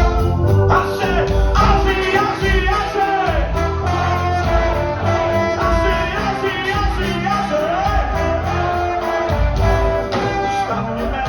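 A ska band playing live: a horn or vocal melody with gliding notes over guitar, bass and drums keeping a steady beat.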